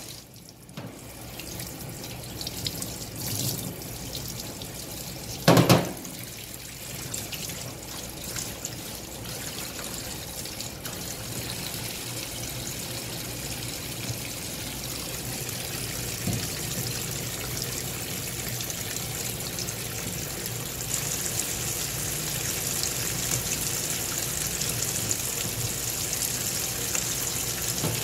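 Water running from a pull-out sprayer faucet into a stainless steel sink and over a plastic basket, a steady splashing hiss that grows brighter after about twenty seconds. One loud knock comes about five and a half seconds in.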